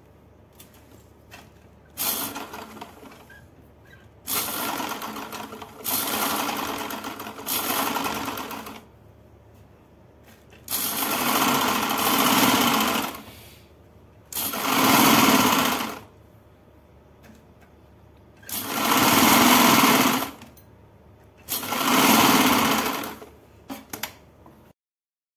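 Gulab sewing machine stitching pintucks: several runs of steady machine stitching, each one to four seconds long, with short pauses between them.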